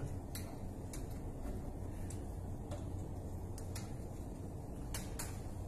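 Steady low hum of running refrigeration machinery, with a few light clicks scattered through.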